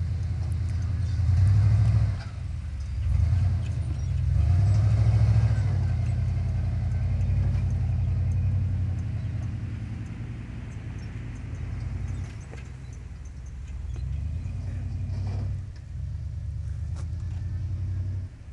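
Lifted full-size pickup truck's engine revving as it crawls over rocks and climbs a dirt hill: a deep rumble that surges three times in the first few seconds, then settles lower as the truck moves off up the slope.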